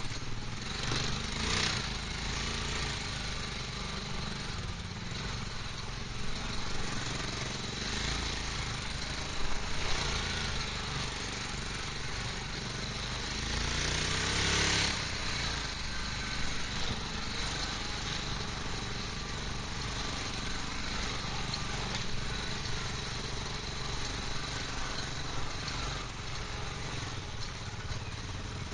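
Quad bike (ATV) engine running steadily under way, heard from the rider's own machine, with a few short knocks and a brief swell in level about halfway through.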